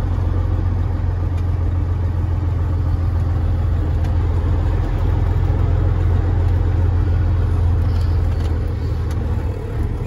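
Caterpillar 3406E inline-six diesel of a Freightliner FLD120 running at low revs as the truck pulls slowly around, heard from inside the cab: a steady low drone.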